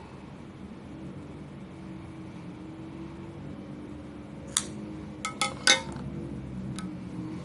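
Small metal parts clinking against a hard surface during hands-on work on a graphics card: one sharp clink, a quick cluster of three a moment later, and a lighter one near the end, over a steady low hum.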